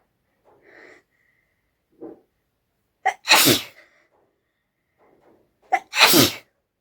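A person sneezing twice, about two and a half seconds apart. Each sneeze is a short sharp catch followed by a loud burst. Faint breaths come in between.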